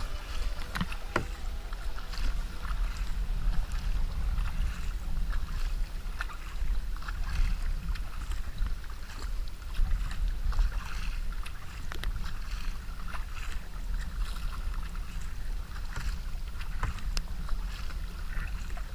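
Kayak paddle strokes on flat river water: irregular light splashes and drips from the blades, with wind rumbling steadily on the action camera's microphone.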